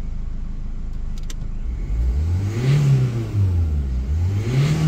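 Renault Clio 1.5 dCi diesel engine idling, then revved twice, each rev rising and falling, about two seconds apart. It revs fine, with its particulate filter pressure sensor pipe freshly replaced.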